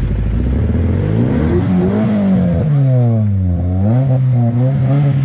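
Honda Civic four-cylinder engine revved hard, its pitch climbing and falling several times as the throttle is blipped.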